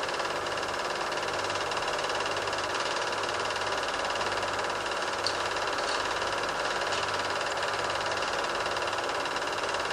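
Steady mechanical whirring and clatter of a film projector running, with no other sound; the Super 8 film itself is silent.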